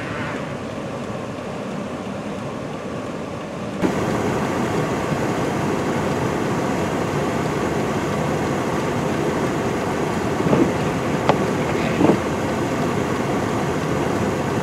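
For the first few seconds, a UPS delivery truck's engine running as it sits in deep snow. Then, after a sudden cut, snowstorm wind blows steadily over the microphone, louder than before, with a few short knocks about ten to twelve seconds in.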